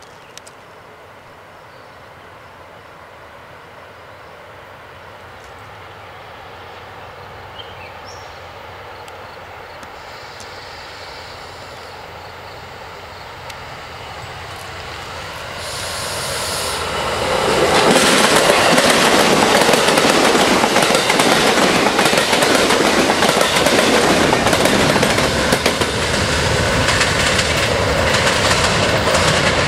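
Amtrak Vermonter passenger train, led by a cab car, approaching and then passing close by. Its sound swells slowly as it nears, rises sharply about 17 seconds in, and becomes loud wheel-on-rail noise with clickety-clack as the cars roll past.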